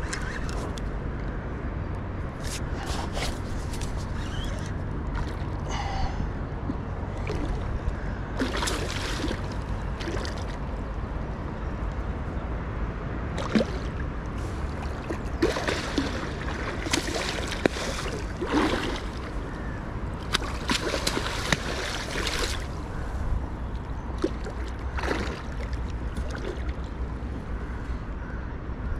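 River water sloshing and slapping against the side of a small fishing boat in irregular splashes over a steady low rumble, the splashes thickest in the second half.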